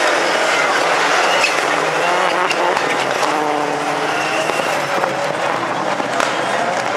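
Several turbocharged rallycross Supercars revving hard through a curve, their engine notes overlapping and rising and falling as they brake and accelerate, with a few sharp pops.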